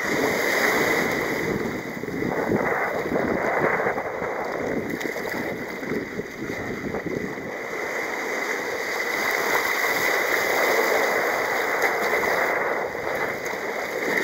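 Rough, breaking sea rushing and sloshing around a sea kayak as it is paddled through the waves, a steady churning water noise.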